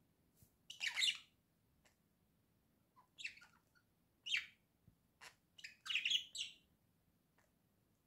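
Budgerigars chirping in short separate calls, about five of them, the loudest about a second in and a longer run of chatter around six seconds in.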